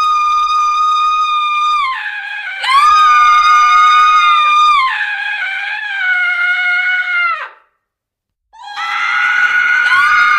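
Women's screams used as horror sound effects: long, shrill, held screams, several in succession and partly overlapping. They cut off about seven and a half seconds in, and after a second of silence another scream begins.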